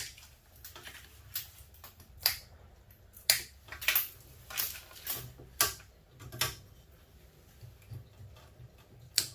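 About a dozen sharp, irregular clicks and clacks as a wire harness is unclipped and pulled out of a dishwasher.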